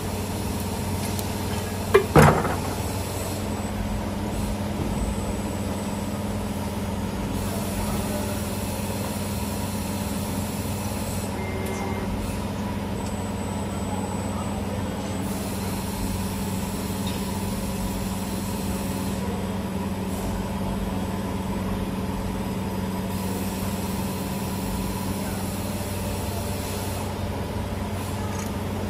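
CNC wire-forming bending machine running with a steady electrical hum, and one loud sharp clack from its tooling about two seconds in.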